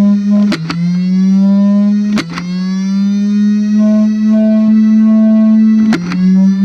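Electric flywheel Nerf blaster revving with a steady motor whine. It fires three darts with sharp clicks, about half a second, two seconds and six seconds in. After each shot the pitch sags and then climbs back as the flywheels spin up again.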